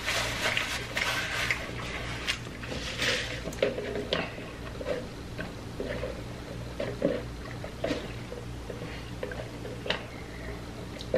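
Close-miked eating sounds: wet chewing, squishing and mouth clicks from fried chicken fingers being eaten. There is a denser run of crackly noise in the first few seconds, then scattered short smacks and clicks.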